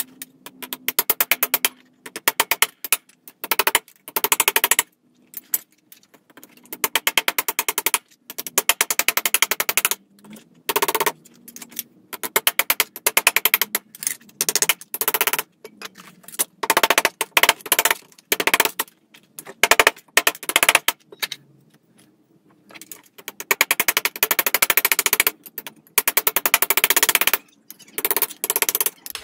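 Metal body hammer striking thin sheet steel over a vise in quick runs of many light blows a second, each run broken by a short pause: the steel is being shrunk by hammering while still warm from the torch.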